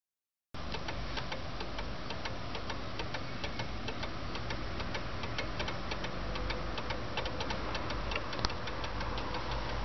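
Antique French pendulum wall clock movement ticking steadily, with a steady hiss beneath the ticks. The sound starts abruptly about half a second in.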